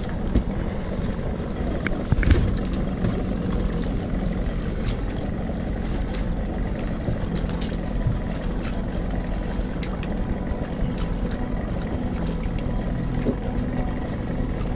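Johnson outboard motor idling steadily, with scattered clicks and knocks over it, the loudest about two seconds in.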